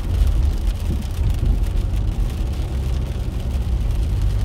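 Steady low road rumble inside a moving car's cabin, tyres running on a wet road, with faint scattered ticks of rain on the windshield.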